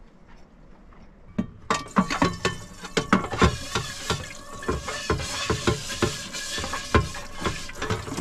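Washing up in a small stainless-steel sink: plates, pans and cutlery clinking and clattering over a steady hiss, starting about two seconds in.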